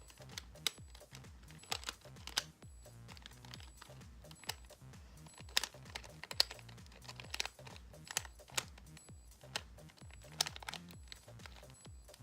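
Plastic 2x2 Rubik's cube being scrambled by hand, its layers clicking and clacking in quick, irregular turns. Background music with a low bass line plays underneath.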